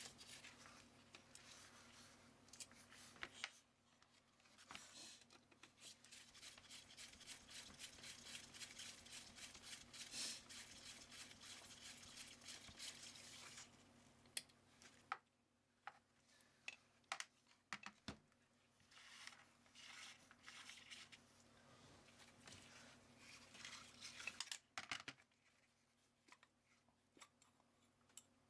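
Faint scraping and rubbing, then a scatter of small sharp clicks: hands handling scooter parts and tools during work on the carburettor.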